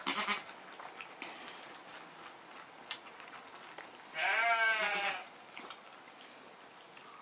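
A goat bleating once, a wavering call of about a second near the middle.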